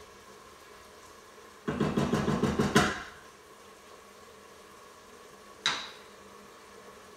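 Wooden spoon scraping and rattling quickly against the Instant Pot's stainless steel inner pot for about a second, while stirring reducing wine. A single sharp clack near the end as the spoon is laid down.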